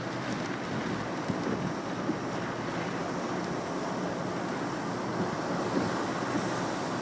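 Heavy typhoon surf breaking in a steady rush, with strong wind buffeting the microphone.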